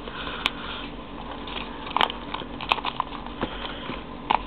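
A sheet of origami paper being folded and creased by hand: soft rustling with a few short, sharp crackles as the crease is pressed in.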